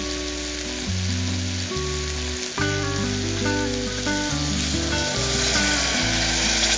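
Background music with a bass line and melody over steady sizzling of beetroot masala in a hot pressure cooker. The sizzling gets louder near the end as coconut milk is poured into the cooker.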